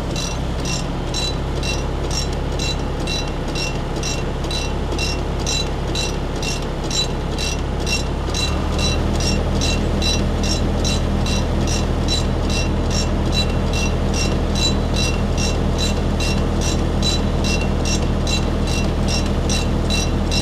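John Deere tractor's diesel engine running under load with a forage loader wagon, a low steady drone that steps up in pitch and gets a little louder about eight and a half seconds in. A rapid, even mechanical ticking, about two and a half times a second, runs over it.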